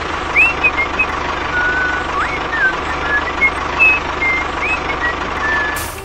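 Tractor engine running steadily, with short bird chirps sounding over it throughout.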